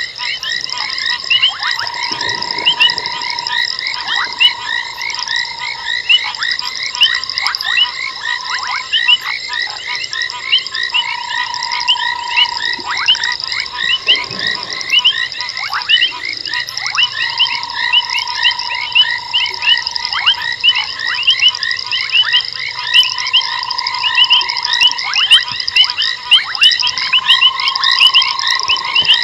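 A chorus of many frogs calling, with dense, overlapping, rapidly repeated high calls and, every few seconds, a long level trill in a lower tone that holds for a second or two.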